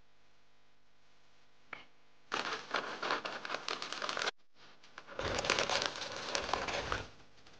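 A plastic zip-top freezer bag crinkling as it is handled, in two spells of about two seconds each with a short pause between.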